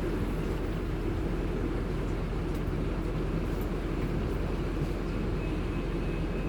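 Steady low rumble of a car driving on the road, engine and tyre noise without changes in pitch. A faint high tone sounds briefly near the end.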